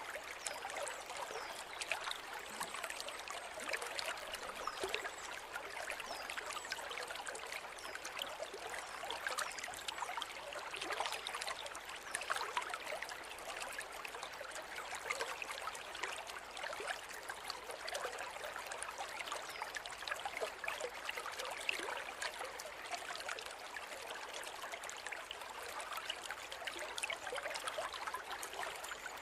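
River water running steadily, a babbling, trickling flow full of small splashes.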